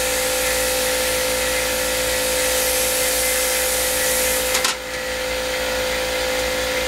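Air compressor running loud with a steady hum, under a hiss of compressed air from the paint spray gun's line. The hiss cuts off suddenly with a couple of clicks about four and a half seconds in, while the compressor keeps running.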